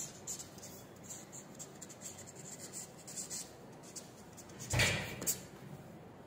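Marker pen writing on a stack of paper: short scratchy strokes, then a longer, louder swipe about five seconds in as a line is drawn under the words.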